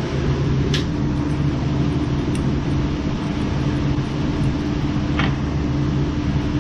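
Steady low mechanical hum with a constant pitch, with a few faint clicks.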